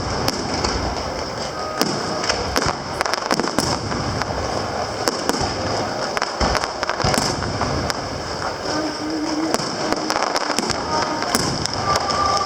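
Aerial fireworks going off in rapid succession: a dense run of sharp bangs with crackling between them.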